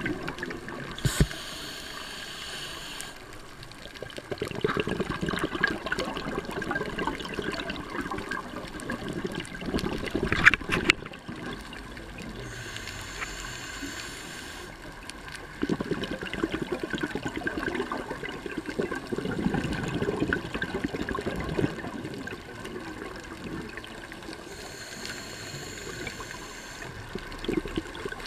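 Scuba breathing heard underwater through a regulator: three breaths, each a hiss of air on the inhale followed by several seconds of bubbling as the exhaled air escapes.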